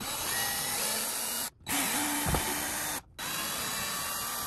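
Craftsman cordless drill/driver running in three runs of about a second and a half each, with short stops between them, backing screws out of a wooden wall panel.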